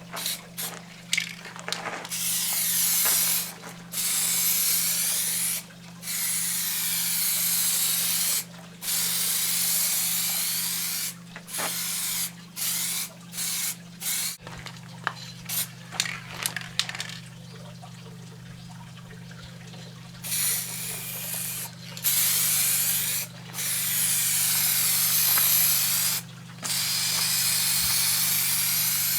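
Aerosol spray can of clear coat hissing in repeated bursts of about one to four seconds, with short pauses between passes. A steady low hum runs underneath.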